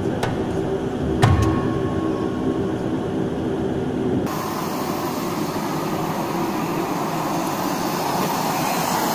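Cabin drone of a turboprop airliner taxiing, a steady hum with several tones, with a couple of brief knocks near the start. About four seconds in it cuts suddenly to a steady rushing noise of aircraft engines heard outside on the apron.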